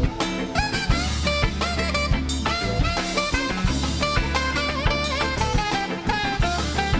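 Funk band playing: a horn melody with bent notes over a steady drum-kit beat and a strong, deep bass line.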